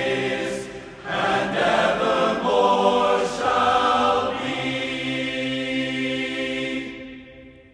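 Men's glee club singing a cappella in several parts, closing the song on a long held chord that fades away near the end.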